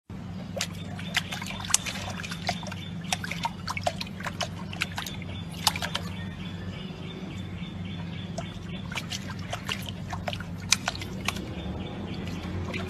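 Small irregular splashes and drips of water as a puppy paws at the surface of a lily-pad water tub, over a steady low hum.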